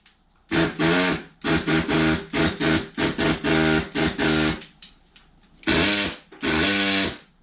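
A new handheld air saw triggered in a string of short, stuttering bursts, then two longer runs near the end, each a pitched buzz that rises as it spins up. It is not running smoothly, and the owner thinks it may need oiling.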